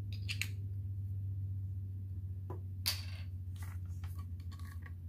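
Light clicks and rustles of plastic diamond-painting supplies being handled, the drill tray and small zip bags of resin drills, over a low steady hum. The loudest is a short scrape about three seconds in, and a cluster of small ticks follows near the end.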